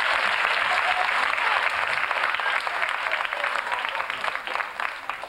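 Audience applauding, a dense patter of many hands clapping that thins out and quietens near the end.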